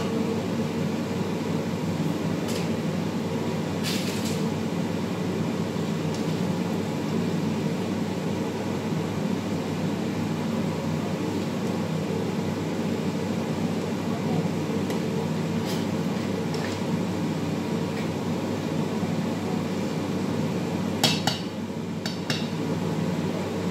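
A few sharp clinks of a metal cooking utensil against a large aluminium pot while stirring, the loudest cluster near the end, over a steady low kitchen hum.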